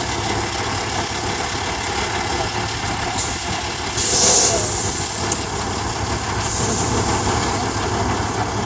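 Semi truck's diesel engine idling steadily, with a short, loud hiss of air about four seconds in and a faint hiss again later.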